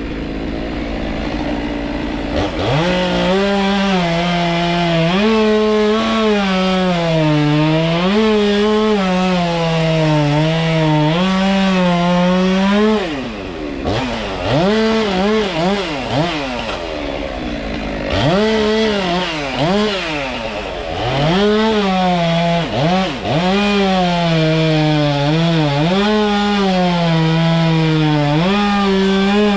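Stihl MS 193 T top-handle two-stroke chainsaw cutting through wood at high revs, its engine note sagging under load and climbing again as the chain frees. About halfway through it is revved up and down several times out of the cut, then goes back into cutting.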